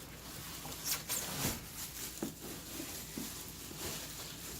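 Cardboard packaging scraping and rustling, with a few short knocks, as a heavy boxed drill press is grabbed and shifted.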